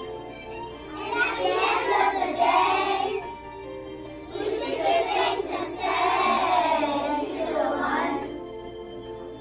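A class of young children singing a song together over instrumental music, in two sung phrases with a short break a little past three seconds in.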